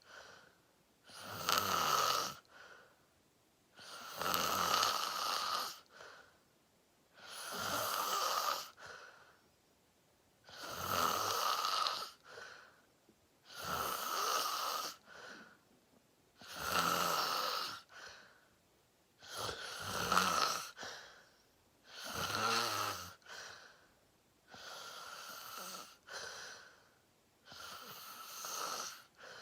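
A sleeping person snoring: a rasping, noisy breath about every three seconds, each lasting a second or two, with quiet gaps between.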